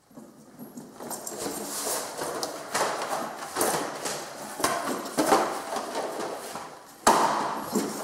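File folders and binders being picked up and gathered from a hard hallway floor: repeated sliding, rustling and clacking of the covers, with a sharper knock about seven seconds in.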